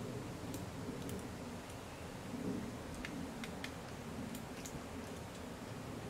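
Downy woodpecker pecking at in-shell peanuts in a wire wreath feeder: irregular sharp taps over a steady low rustle of wind in the trees.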